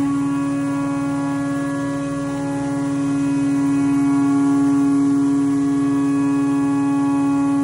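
Haas CNC vertical milling machine's end mill cutting metal under flood coolant: a steady whining tone that sets in abruptly at the start and holds without a break.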